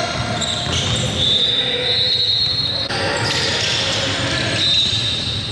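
Basketball being bounced on a gym floor during play, with two drawn-out high squeaks, one from about a second in and a shorter one near the end.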